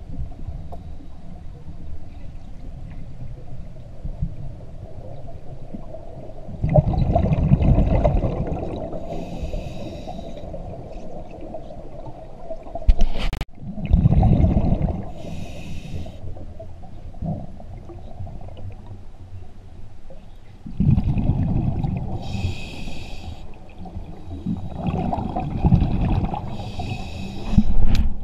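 A scuba diver's regulator breathing underwater: four loud bubbling rumbles of exhaled air, roughly every six to eight seconds, with fainter hissing from the regulator between them.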